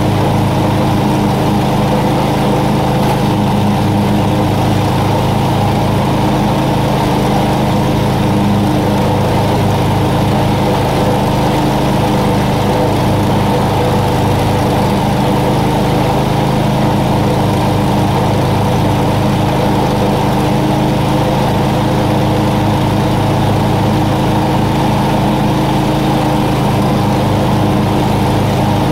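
Lawn mower engine running steadily at an even pitch, loud and close.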